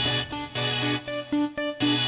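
Background music made of short pitched notes repeated at an even pace.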